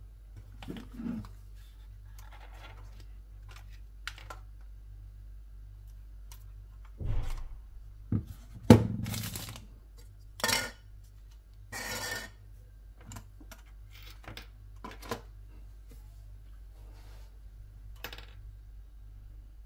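Hands handling objects and packaging: scattered clicks, taps and rustles, with the loudest knocks and rustling clustered about a third to two-thirds of the way in, over a steady low hum.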